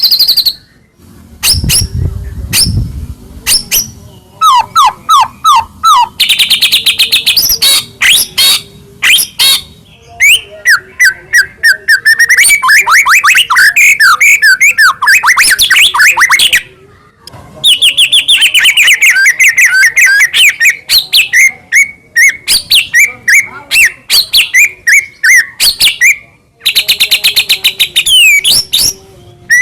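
White-rumped shama (murai batu) singing loudly in a long, varied run of rapid repeated notes, trills and sweeping whistles, broken by short pauses. A brief low rumble sounds near the start.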